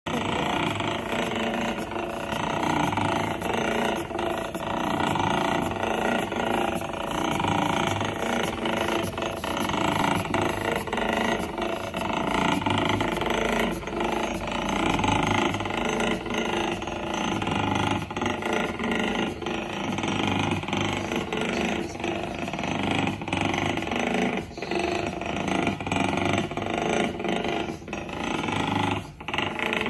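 Small homemade steam engine running steadily on low-pressure compressed air (about 5 psi), with a rapid even chuffing of exhaust and fast mechanical clicking from its gears and valve linkage.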